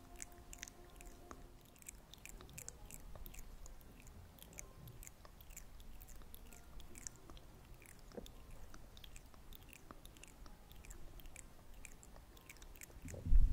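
Soft, close-up clicks and crackles, irregular, several a second. A sustained music tone fades out in the first two seconds, and a low thump comes right at the end.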